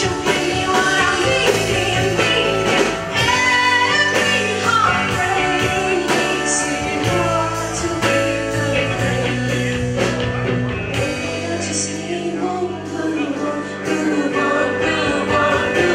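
Women singing with a live band: lead and backing vocals over electric bass, drums and guitar.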